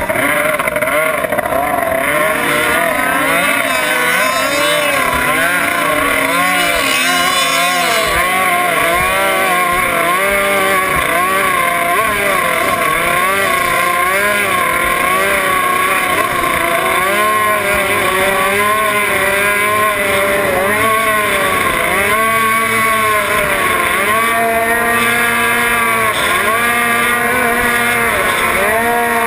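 Racing boat's outboard motor running at speed, its pitch rising and falling over and over.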